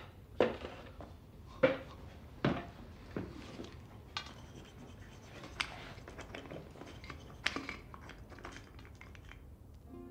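A light bulb being changed by hand in a ceiling fitting: scattered sharp clicks and knocks, about half a dozen, with light scraping and handling in between.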